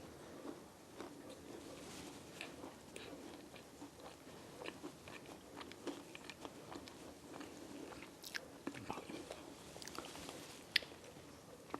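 A person biting and chewing a chocolate chip cookie close to the microphone: soft, irregular crunches and mouth clicks, with one sharper click near the end.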